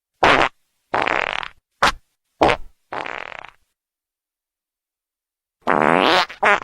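Wet fart sound effects: five short farts in quick succession over the first three and a half seconds, then, after a two-second gap, a longer fart near the end that rises in pitch, followed by a short one.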